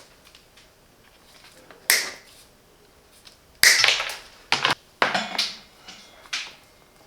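Hand tools being handled, a combination plier among them, giving sharp clicks and clacks: one about two seconds in, then a quick cluster of several between about three and a half and five and a half seconds, and one more near the end.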